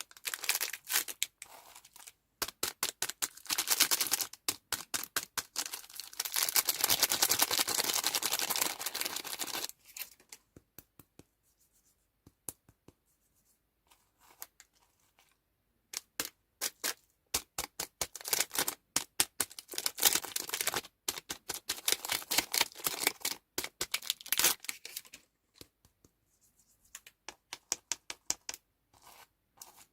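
Candy wrappers and packaging being handled and torn open: quick crackles and clicks, with a longer stretch of dense crinkling and tearing about a third of the way in, a lull in the middle, then more rapid crackling.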